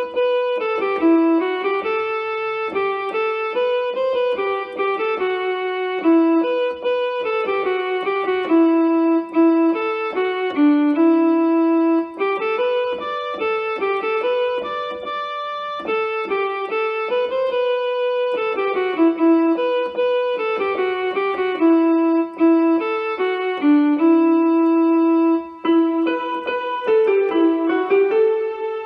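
Yamaha PSR-E series portable keyboard in a piano voice, played one-handed: a single-line melody one note at a time, in phrases that repeat every few seconds.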